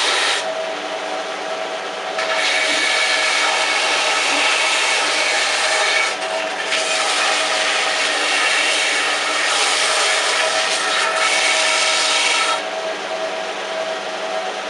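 Electric sander running with coarse grit biting into a hardwood axe handle. The motor hums steadily throughout, and the grinding gets louder in stretches of several seconds as the wood is pressed to the abrasive, easing off briefly in between and again near the end.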